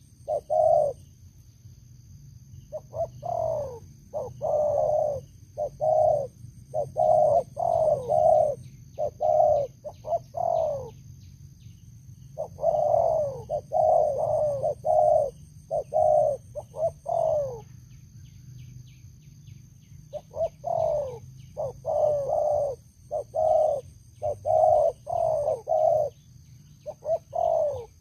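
Spotted dove cooing in repeated bouts of quick, downward-falling coo notes, several to a bout, with pauses of one to two seconds between bouts.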